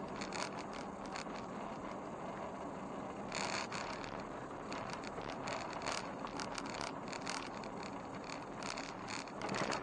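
Vehicle driving along a rural road: steady road noise with irregular small clicks and rattles throughout.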